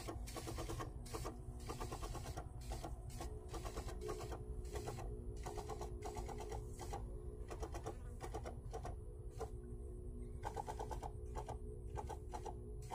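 Knapsack sprayer's pump running, a steady hum with rapid ticking, while fungicide is sprayed.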